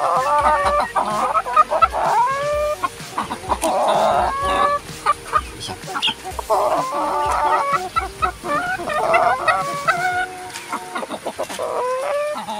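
Hens clucking, a run of short repeated calls in clusters every couple of seconds, some rising at the end.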